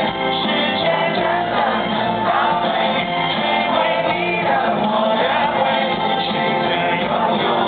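Live rock band playing with a singer.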